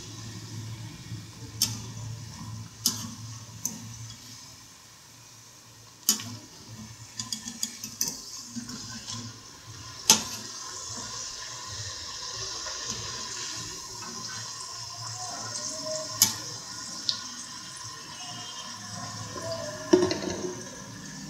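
Batter-coated tapioca strips deep-frying in hot oil in a kadai: a steady sizzle, with a wire spider strainer clinking sharply against the pan several times as the pieces are moved.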